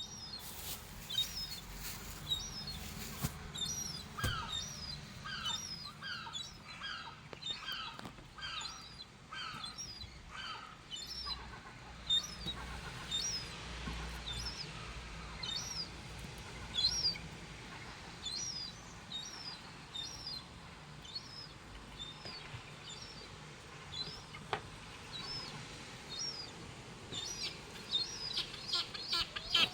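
Birds calling in a long series of short, high chirps, roughly two a second, over a faint steady background. A second, lower-pitched call repeats alongside them for several seconds near the start.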